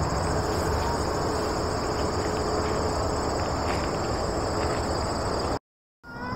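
Crickets chirping in a steady, continuous chorus of two high, fine-pulsed trills, over a steady low rumble. The sound cuts out completely for about half a second near the end, then the chorus comes straight back.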